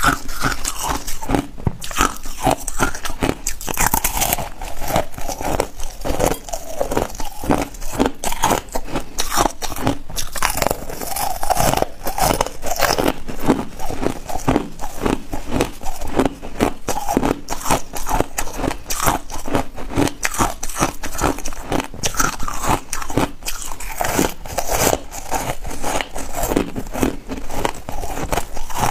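Purple foam ice being bitten and chewed up close to the microphone: a dense run of crisp crunches and cracks, several a second, with no let-up.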